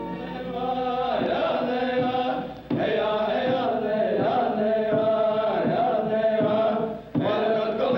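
Soundtrack music of voices chanting in repeated phrases, with short breaks about three seconds in and again near the end.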